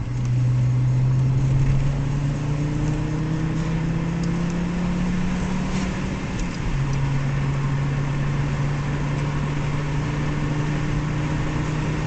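The Audi 100 Quattro Turbo's 2.2-litre ten-valve turbocharged five-cylinder engine (MC), heard from inside the cabin, accelerating with its note climbing steadily. About six and a half seconds in, the pitch drops suddenly as it changes up a gear, then the note holds and climbs slowly again over steady road noise.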